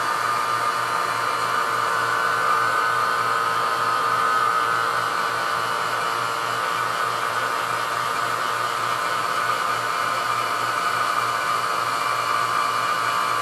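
Vacuum pump running steadily, pulling down the test chamber.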